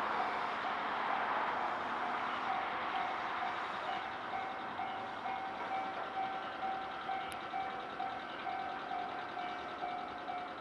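Railway level-crossing alarm ringing, a single-pitched electronic tone repeating evenly about twice a second, over a steady hiss that eases off after the first few seconds.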